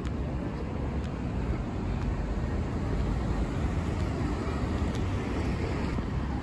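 Steady road traffic noise from cars on a city main road, a constant rumble strongest in the low end.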